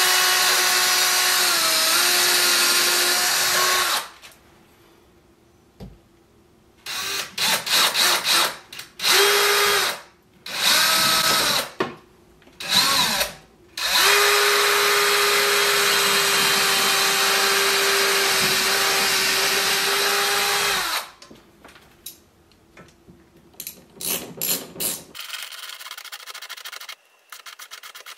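DeWalt cordless drill driving screws through a steel TV wall-mount bracket into the wall studs: a steady run of about four seconds, then a string of short trigger bursts, then a second long run of about seven seconds.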